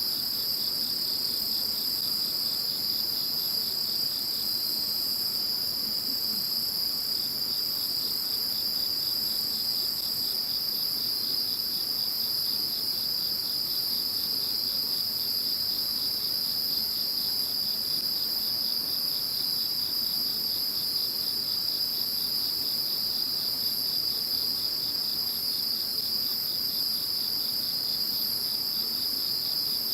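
Chorus of crickets and other singing insects, several trilling steadily at different high pitches at once, one of them in fast even pulses. A higher-pitched caller drops out about a third of the way through and another comes in around the middle.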